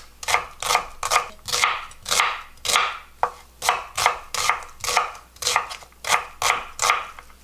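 Kitchen knife coarsely chopping an onion on a wooden cutting board: a steady run of strokes, about two a second, stopping shortly before the end.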